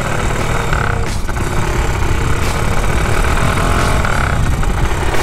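Motorcycle engine running steadily while under way, with a heavy, uneven low rumble.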